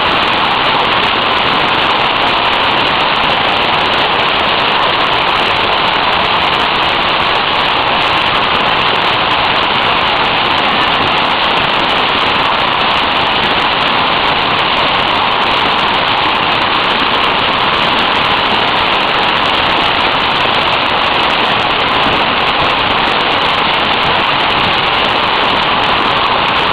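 Hailstorm: hail and heavy rain falling hard and steady, a dense unbroken rush of many small impacts.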